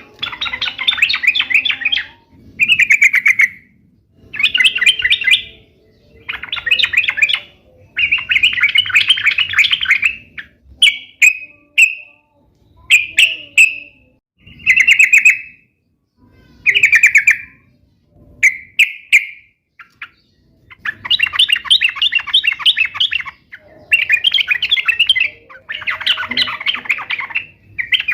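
Yellow-vented bulbul (trucuk) song: loud bouts of rapid, bubbling chattering notes, each a second or two long, repeating with short pauses throughout.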